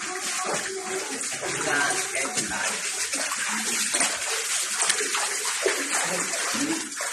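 Floodwater sloshing and splashing as people wade through it and push a small plastic tub along the surface.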